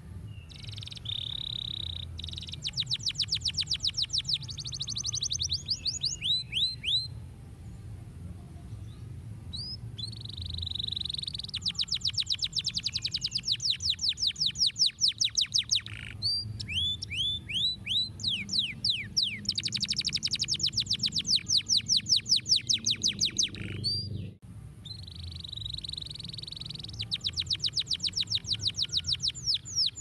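Domestic canary singing in long bouts: a held whistle, then fast trills of rapidly repeated notes and quick down-slurred notes, with short pauses between bouts. A steady low hum runs underneath.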